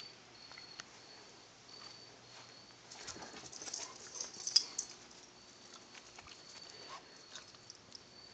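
Faint rustling and light steps on grass and dry leaf litter, with scattered crackles that pick up about three seconds in and a sharp tick a little later.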